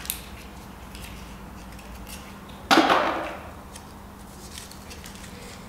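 Small paper slip being unrolled by hand, giving faint crinkles and ticks over a low steady room hum. A little under three seconds in, a short loud rush of noise rises suddenly and fades over about a second.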